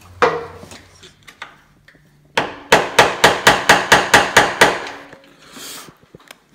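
Hammer tapping a punch in quick blows, about a dozen at roughly five a second after a single knock at the start, to turn the spring preload collar on a motocross bike's rear shock and set the rear sag.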